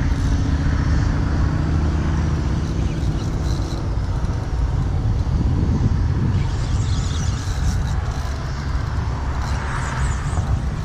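Wind buffeting an outdoor microphone: a steady low rumble, with brief patches of hiss.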